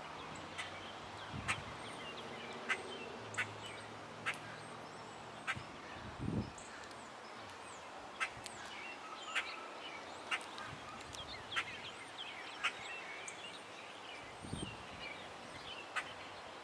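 Small birds chirping and calling around a feeder, with many short, sharp chip notes scattered irregularly and a couple of faint low thuds.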